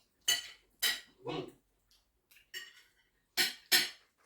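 A few short, sharp clinks and clatters, of the kind made by cutlery and dishes at a breakfast table, with a duller knock between them.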